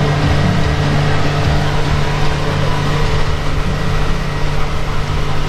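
Yamaha 90 outboard motor running steadily at cruising speed, a constant drone under the rushing noise of the boat's wake.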